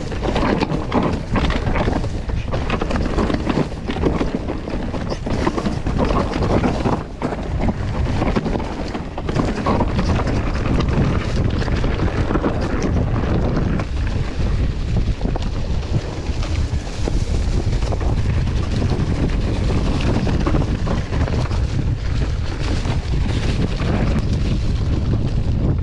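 Wind rushing over the camera's microphone on a mountain bike going down a trail, with tyres and bike clattering over rough ground. The knocks come thick in the first half, then ease into a steadier rush.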